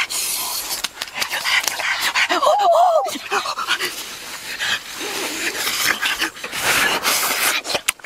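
Boys sniffing and breathing hard in quick, noisy strokes with their faces close to roasted chicken, with a short wavering, whine-like vocal sound about two and a half seconds in.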